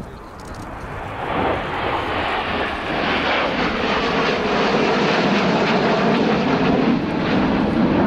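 Three Panavia Tornado jets flying past in formation, their Turbo-Union RB199 turbofan engines making a loud jet roar. The roar builds over the first second and a half as they approach, then holds steady.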